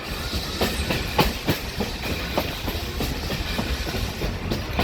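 Railroad passenger car rolling along the track, heard from aboard: wheels clacking and knocking irregularly over the rails over a steady low rumble.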